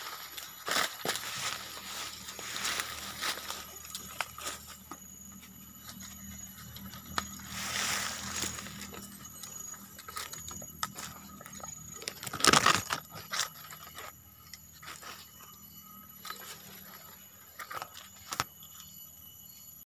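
Scattered rustles and crunches of footsteps on dry leaf litter, with one louder crunch about twelve and a half seconds in, over faint steady high-pitched tones.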